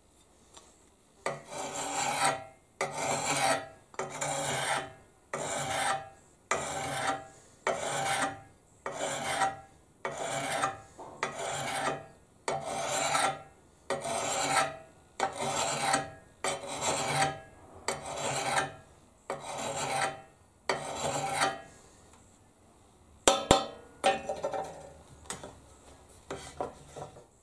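Flat hand file drawn across the steel bit of a double-bit axe, about twenty even rasping strokes at roughly one a second, sharpening the edge. A couple of sharp metallic clicks come near the end as the filing stops.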